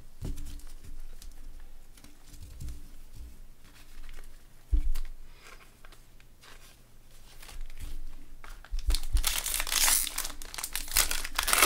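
Gloved hands handling trading cards with a few soft knocks on the table, then a plastic-foil card pack wrapper crinkling loudly and tearing open in the last three seconds.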